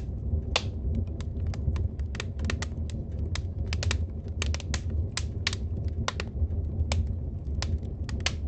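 Fire crackling: irregular sharp snaps, several a second, over a steady low rumble.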